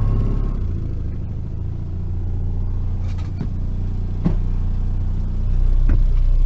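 Boat's outboard motor running under trolling throttle after being turned up to get the boat moving, a steady low hum that grows louder about five seconds in. A few sharp clicks and knocks come from gear being handled in the boat.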